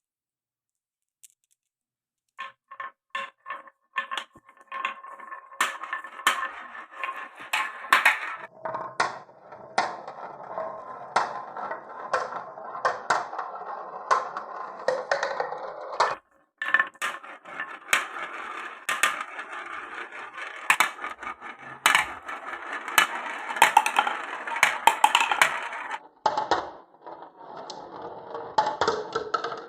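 Marbles clacking and rolling down a wooden marble run. A quick series of clicks starts a couple of seconds in, then the balls keep rolling along the wooden track with frequent sharp knocks against the blocks and each other.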